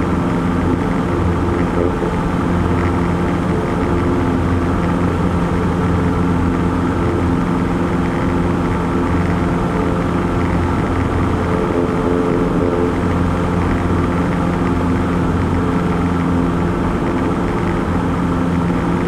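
Light single-engine propeller plane's piston engine and propeller running steadily at takeoff power during the climb-out.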